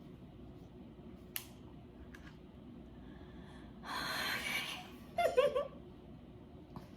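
A woman's breathy exhale followed by a short, high-pitched gasp of excitement, the loudest sound, a couple of seconds before the end. A single sharp click comes about a second and a half in.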